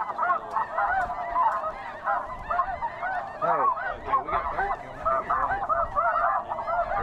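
Large flocks of snow geese calling in flight: a dense, continuous chorus of many short, overlapping honks.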